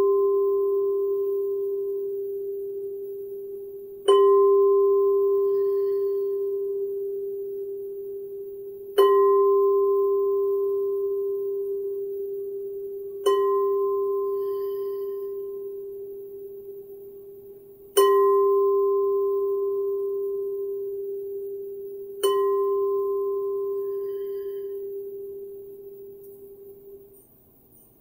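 Frosted quartz crystal singing bowl struck with a mallet five times, about every four to five seconds. Each strike rings out as one steady low hum that fades slowly, with a brighter overtone above it that dies away within a second or two.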